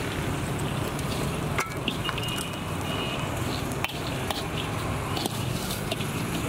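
Chickpeas and corn kernels being stirred through hot sand in a wide metal pan with a flat metal scraper: a continuous gritty scraping, with a few sharp clinks of the blade against the pan.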